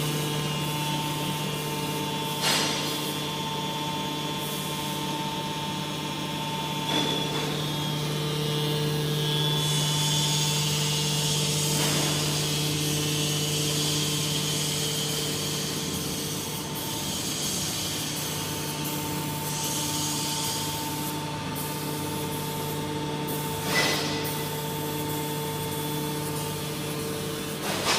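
Automatic aluminium can baler running, its hydraulic pump motor giving a steady hum. A few sharp knocks or clanks come at irregular intervals from the baling mechanism.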